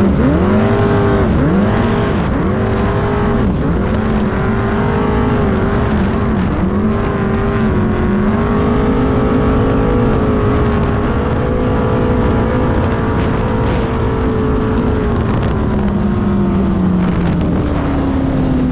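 The 468-cubic-inch big-block Chevy V8 in a V-drive Sanger hot boat, running at low speed. Its revs rise and fall over the first several seconds, hold steady through the middle, then slowly ease off near the end.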